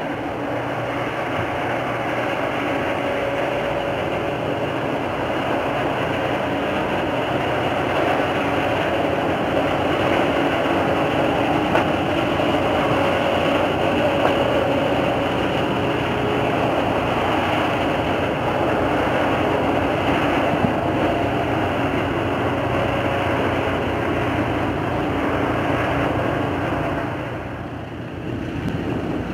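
Purse-seine fishing vessel's diesel engines running as the boat passes close at speed, a steady drone mixed with rushing water from its bow wave, loudest around the middle and dipping briefly near the end.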